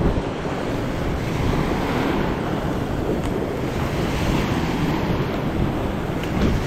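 Steady wind buffeting the microphone over waves washing in an ocean inlet.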